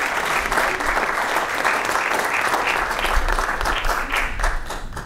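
Audience applauding: many people clapping together, steady and dense, easing off a little near the end.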